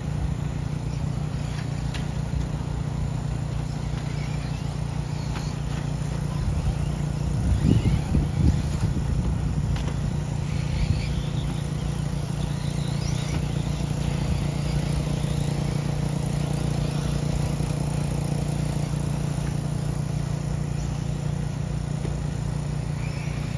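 Electric short-course RC trucks running on a dirt track: faint motor whines rising and falling over a steady low hum, with a short burst of low rumble about eight seconds in.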